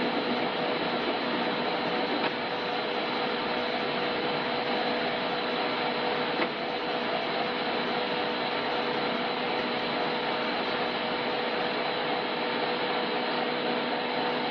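ZMM Sliven CU1000RD screw-cutting lathe running with a steady hum and whine.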